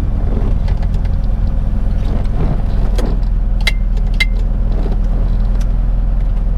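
Classic Mini's A-series four-cylinder engine running steadily, heard from inside the cabin, with a few sharp clicks about three to four seconds in.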